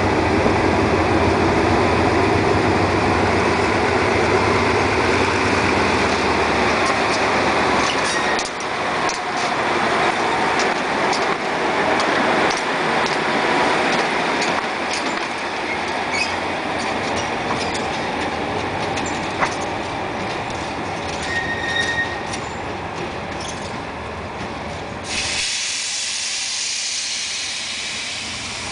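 Hitachi locomotive's Cummins KTA50-L V16 diesel engine running loud as the locomotive passes close by, with wheels clicking over the rail joints, then fading as it moves off along the track. A steady hiss comes in about three seconds before the end.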